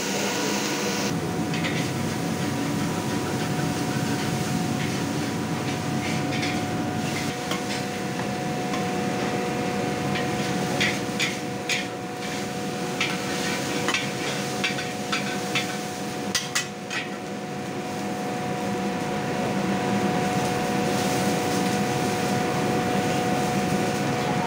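Metal spatula and ladle scraping and clanking against a steel wok while stir-frying noodles, with a run of sharp knocks in the middle. A steady hum with two constant tones runs underneath.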